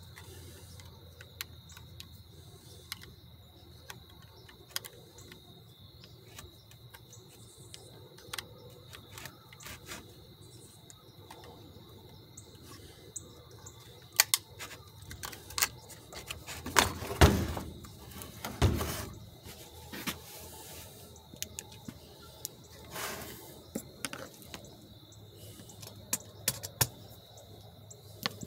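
Scattered light clicks and knocks of hand tools and plastic parts as a Stihl MS 192 T chainsaw is taken apart by hand, with a louder run of handling clatter a little past the middle. A faint steady high tone runs underneath.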